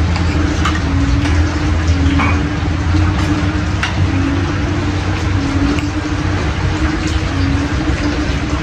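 A steady rushing noise with a low hum and a wavering drone underneath, like a running motor or fan, with a few light clicks of spoons on plates.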